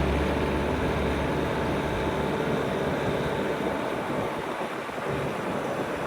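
Bobcat S650 skid steer's diesel engine running, a steady low drone with a broad hiss over it. The low drone eases for a couple of seconds in the second half and then comes back.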